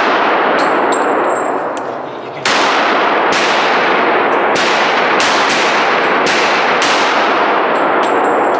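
A string of pistol shots, about eight, each sharp crack followed by a long echoing tail that runs into the next. The first loud shot comes about two and a half seconds in, after a lighter one near the start, and the shots then come roughly every half second to second.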